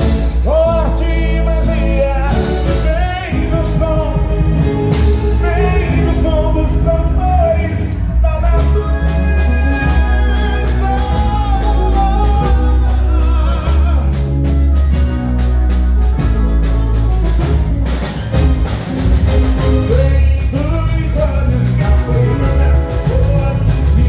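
Live boi-bumbá toada played by a band with a steady, heavy bass beat. A voice sings the melody over it, most clearly in the first several seconds and again near the end.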